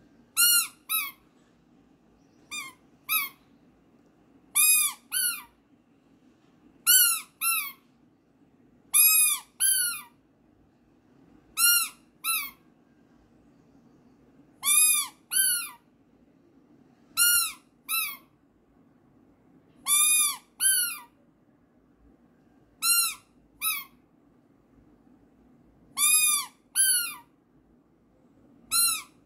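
Squeakers in the soles of children's squeaky flip-flops, pressed by hand: high, chirping squeaks that come in pairs, a pair about every two and a half seconds.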